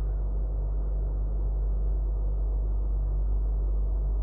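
Steady low electrical hum with a buzzy edge, unchanging in level.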